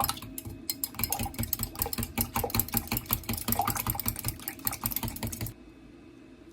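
Rapid, even tapping and clicking of kitchen utensils at work in food preparation, which stops suddenly about five and a half seconds in.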